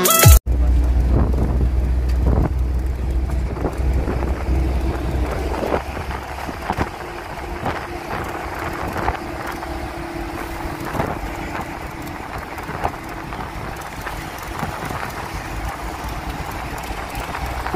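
Road and wind noise inside a moving truck's cab: a steady low rumble with wind rushing over the microphone and scattered brief knocks. The low rumble eases after about six seconds.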